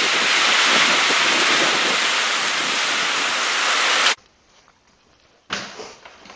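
Heavy thunderstorm rain with wind, a dense steady hiss, that cuts off suddenly about four seconds in, leaving a short near-silence.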